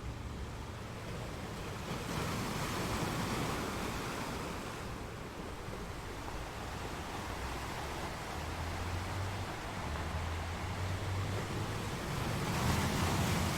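Waves washing in and breaking on rocks, a steady rush of surf that swells twice: once about two seconds in and again near the end.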